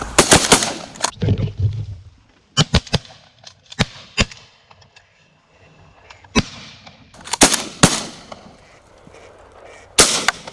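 Several shotguns firing at ducks: about a dozen loud shots in irregular clusters, some close together and overlapping, with quieter gaps between the volleys.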